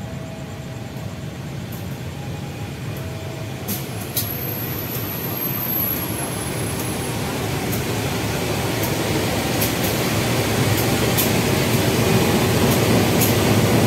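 A CC203 diesel-electric locomotive coming slowly alongside on the next track, its engine and running noise growing steadily louder as it passes close by. A thin high squeal comes about four seconds in, over scattered clicks.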